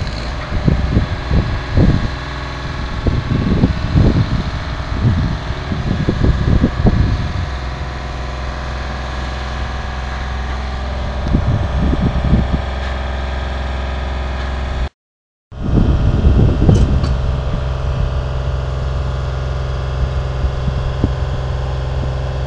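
Heavy construction machinery engine running steadily, most likely the mobile crane lifting the steel truss, with wind buffeting the microphone in gusts. The sound cuts out completely for about half a second near the middle.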